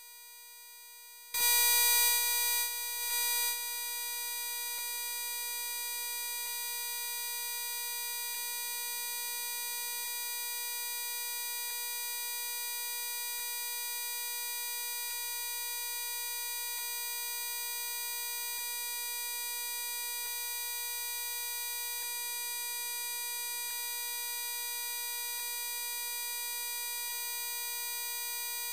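A steady electronic buzz-like tone pitched near 500 Hz, rich in overtones. It jumps louder about a second in, then holds level. A faint tick repeats roughly every one and a half to two seconds.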